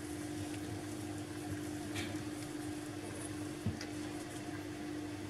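Quiet kitchen with a steady low hum and soft hiss, and a couple of faint light taps as a spatula slowly folds flour into wet cake batter in a bowl.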